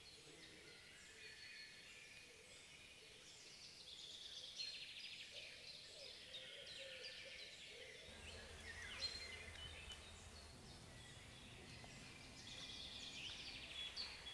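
Faint forest ambience of birdsong: several birds giving high chirps and rapid trills. A low steady hum comes in about eight seconds in.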